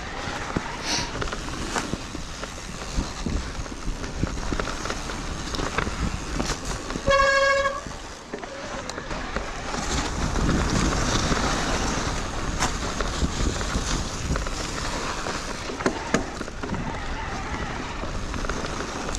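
Wind and rough riding noise with scattered knocks, and about seven seconds in a single vehicle horn toot lasting under a second at one steady pitch.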